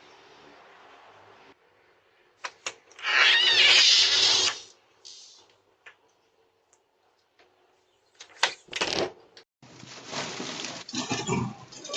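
A loud, drawn-out animal cry, like a cat's, about three seconds in, followed by scattered clicks and knocks and a noisy, rustling stretch near the end.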